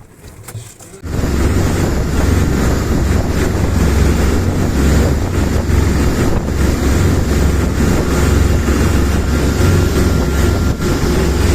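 A motorboat under way: a loud, steady engine rumble mixed with wind buffeting the microphone, starting abruptly about a second in.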